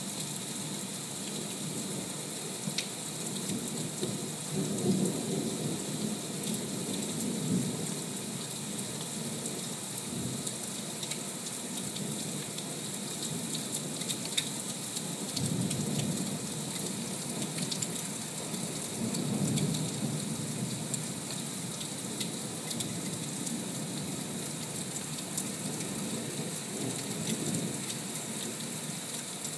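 Thunderstorm: rain falling steadily, with scattered sharp raindrop ticks and low rolls of thunder that swell and fade several times.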